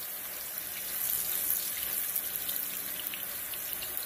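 Tortilla chips deep-frying in shallow oil in a pan, a steady sizzle with scattered small crackles.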